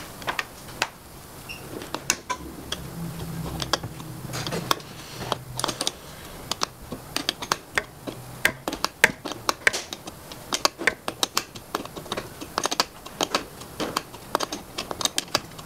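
Small ratchet clicking in short, irregular runs while tightening a water temperature sensor into the water jacket of a Rotax Max 125 kart engine.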